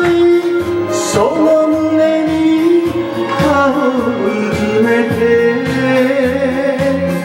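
A man singing through a karaoke microphone over a backing track with a steady bass beat. He holds one long note for about three seconds, slides down, then holds another long note to the end.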